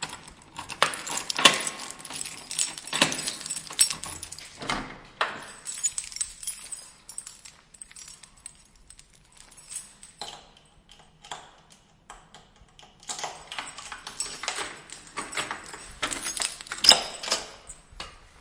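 A door being handled: keys jangling with lock and handle clicking and rattling in irregular clusters, busiest in the first five seconds and again near the end.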